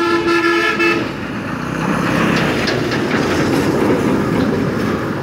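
A vehicle horn sounds in one steady blast that cuts off about a second in. A motorcycle then runs at low speed, its engine blending with road and street noise.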